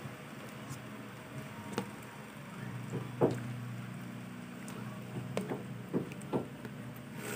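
A spatula stirring chicken in a pan, with a few scattered taps and scrapes against the pan, the loudest a little over three seconds in. A low steady hum runs for a few seconds in the middle.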